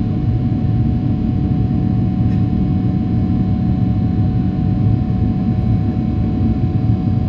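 Airbus A330-900neo's Rolls-Royce Trent 7000 engines and airflow as a steady, loud, low cabin drone, with a few faint steady whining tones riding on it.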